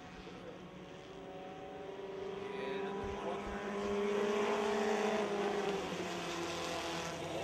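Engines of a field of Dirt Devil race cars running on a dirt oval, several engines at once, growing louder to a peak about four to five seconds in as the pack comes by, then easing off a little.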